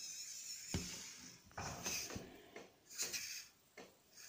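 Small electric motor and metal gear reduction of a 1/43-scale LDARC RC crawler whining as it crawls. A steady high whine in the first part gives way to several short bursts of drive as the throttle is blipped.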